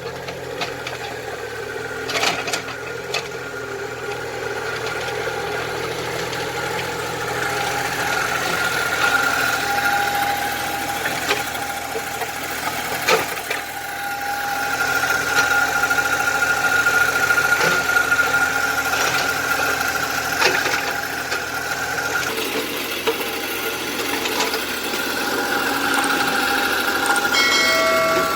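Small excavator running: a steady motor sound with a whine that swells and eases as it works, and scattered clicks and knocks.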